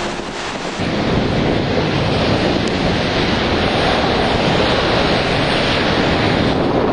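Storm wind buffeting the microphone over rough water: a loud, steady rush of noise that sets in about a second in, after a brief lull.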